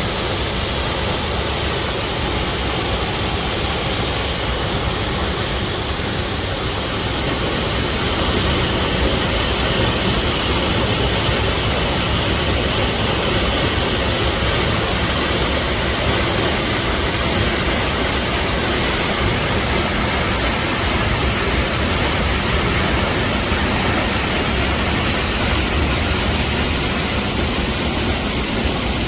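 A steady rushing roar of noise with no distinct tones, getting slightly louder about eight seconds in.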